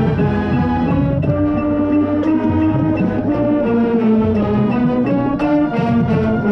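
Marching band wind section playing, heard from among the saxophones: a tenor saxophone close by over the brass and the rest of the band, holding sustained notes that move in a melody over chords.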